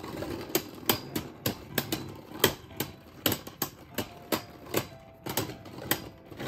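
Two Beyblade Burst spinning tops, Xiphoid Belial and Fafnir, colliding again and again in a plastic stadium: sharp, irregular clacks about three a second.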